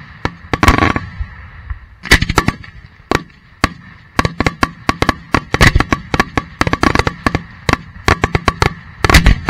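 Daytime fireworks fired from a row of steel mortar tubes close by: a rapid, irregular barrage of sharp bangs, with a short lull about a second in and dense, fast firing from about four seconds on.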